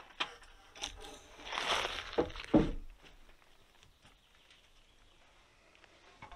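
A peeled wooden log scraping over other logs, then knocking twice about half a second apart as it is dropped into place on a roof of laid logs.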